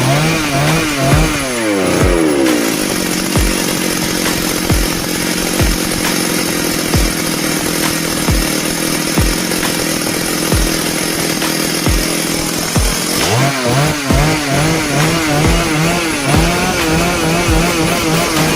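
Stihl MS 382 chainsaw's two-stroke engine, running after a stuck-piston repair: revved up and down, then held at a steady high rev for about ten seconds, then revved up and down again near the end.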